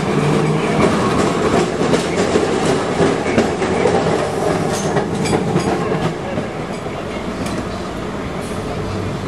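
Streetcar passing close on street rails, its steel wheels clicking and rattling over the track; the sound dies down about six seconds in.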